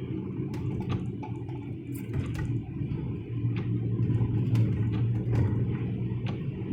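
Car cabin noise while driving: a steady low rumble of road and engine, with scattered irregular clicks and ticks.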